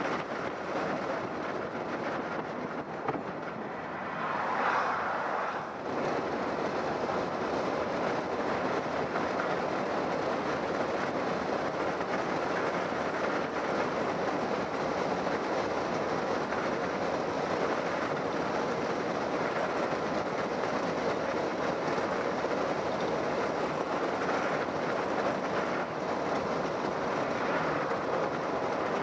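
Steady road and engine noise of a car driving, heard from inside the cabin, with a brief louder swell about four to six seconds in.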